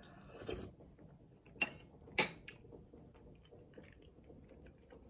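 A spoonful of soup taken off a spoon with a soft slurp, then quiet chewing and small mouth noises, with two sharp clicks about a second and a half and two seconds in.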